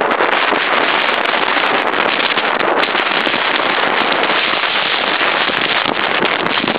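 Strong wind on the microphone, loud and steady, with frequent small crackles, over choppy wind-driven waves splashing close by.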